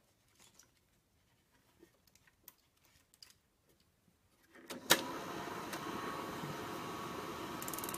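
Chinon 2000GL dual-gauge 8mm cine projector switched on: after a few faint handling clicks, its motor and film mechanism start about five seconds in with a sharp click, then run with a steady whirr and a thin high tone.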